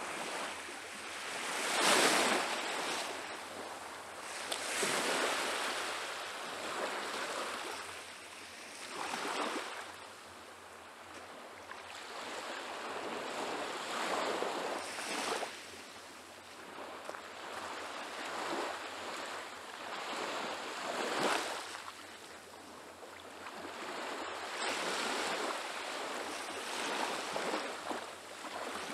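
Small Baltic Sea waves washing onto a sandy shore, the surf swelling and fading every few seconds.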